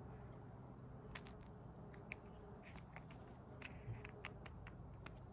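Faint, irregular sharp clicks and cracks of hazelnut shells being bitten and cracked open by a feeding animal.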